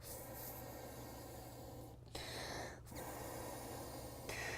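Air being blown into a folding canoe's sponson through its inflation tube, breathed in by mouth: long blows of rushing air, broken by quick breaks for breath about two and three seconds in.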